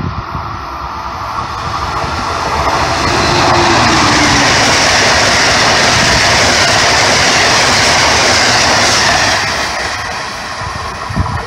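Northbound Amtrak passenger train hauled by an ACS-64 electric locomotive passing on the line. The noise of its wheels on the rails builds over the first few seconds, stays loud for about five seconds as the coaches go by, then fades as the train moves away.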